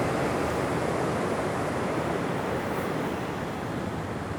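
Ocean surf washing up the beach: a steady rush of breaking waves that eases slightly near the end.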